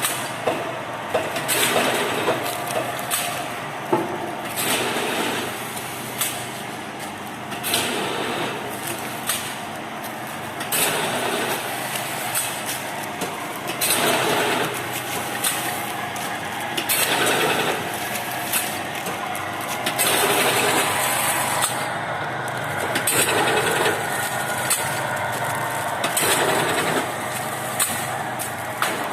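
Powder packing machine running: a steady mechanical drone with repeated sharp clacks from its working cycle every second or so.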